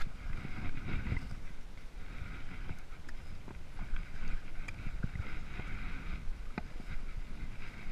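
Wind buffeting the camera microphone, an uneven low rumble with a few short clicks of handling.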